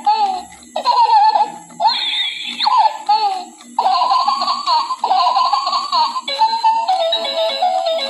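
Battery-operated crawling baby doll toy playing recorded baby giggles and laughter, then an electronic tune starting about four seconds in.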